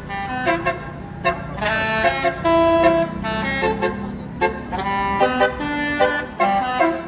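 Basuri telolet horn on a tour bus playing a quick multi-note tune. Its pitch jumps from note to note over the low running of the bus engine.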